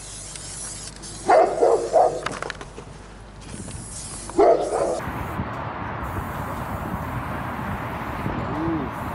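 A dog barking: three quick barks a little over a second in, then one more about four seconds in. After that comes a steady, even background noise.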